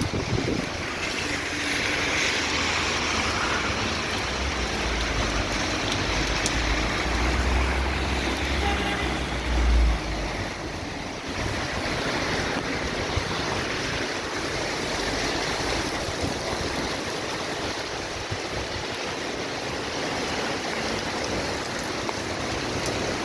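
Heavy rain pouring down steadily in a storm, with a low rumble for several seconds near the middle.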